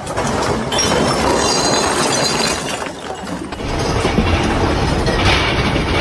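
Ceiling panels and fittings of a large building rattling and clattering loudly as an earthquake shakes it, a continuous noisy racket that eases briefly about three seconds in, then grows again.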